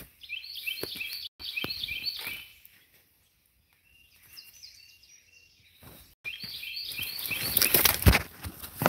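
A songbird singing rapid strings of short chirps, twice, with footsteps snapping and crunching on dry branches and brush. A heavier step lands near the end.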